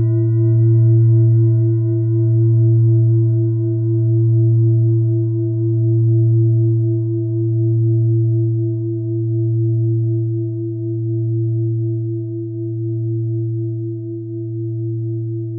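A single deep, bell-like metallic tone ringing out and slowly fading, wavering gently in loudness about every two seconds.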